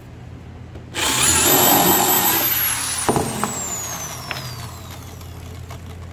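Corded electric drill boring a hole into a wooden shelf board for about a second and a half, then released, its motor whine falling steadily as it spins down. Two short knocks a little after the release.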